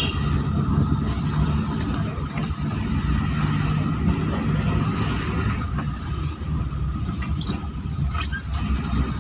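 An engine or motor running steadily with a low rumble and a steady hum, with a few short high-pitched squeaks about five and a half and eight seconds in.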